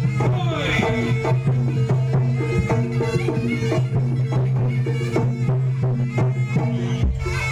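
Jaranan music, a traditional Javanese ensemble: drumbeats over a quick repeating pattern of short pitched notes and a steady low hum.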